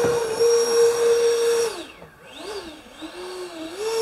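Electric ducted fan running with a steady high whine and hiss, then throttled back: the pitch drops and wavers for about two seconds before it spools back up near the end.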